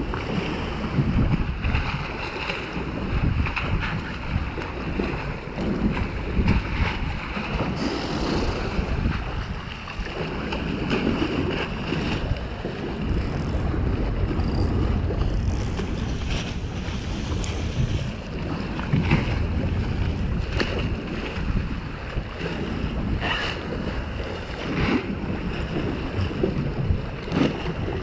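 Wind buffeting the microphone over choppy water slapping and splashing against concrete pier pilings, with a few brief sharper knocks in the second half.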